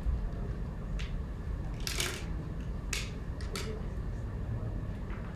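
A few scattered sharp clicks and taps, one stronger one about two seconds in and a quick pair near the end, over a steady low room rumble.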